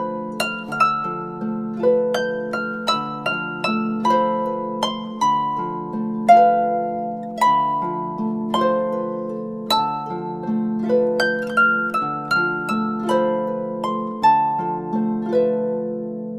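Samsung Galaxy J1 ringtone: a harp-like plucked melody of about two notes a second over a repeated low note, dying away after its last note near the end.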